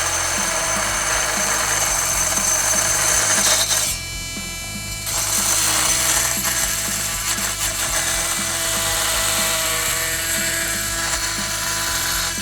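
Oscillating multi-tool running at full speed, its blade cutting through a copper water pipe with a steady high buzz. The cut pauses briefly about four seconds in, then resumes.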